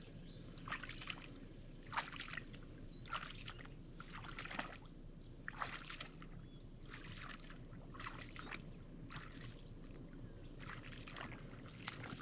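Faint sloshing splashes of someone wading through a muddy bog hole, roughly one step every second, over a low steady rumble.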